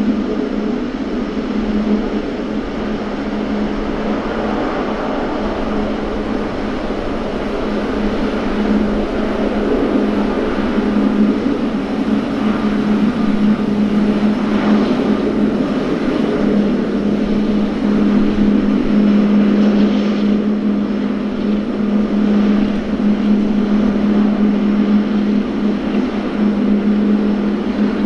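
Boeing 777-300ER's GE90-115B turbofan engines running at low taxi power as the jet taxis, a steady whine-and-rush with a strong constant low hum, slowly growing louder.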